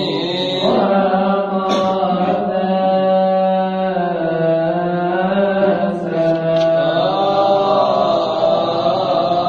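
Coptic Orthodox liturgical chant: a long drawn-out sung line with held notes that slowly slide in pitch.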